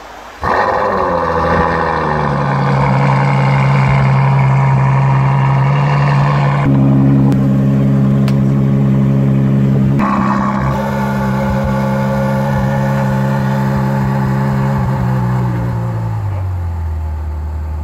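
Ferrari F12berlinetta's 6.3-litre V12 starting up: the revs flare on catching and settle within a couple of seconds into a steady fast idle, which drops to a lower, deeper idle near the end.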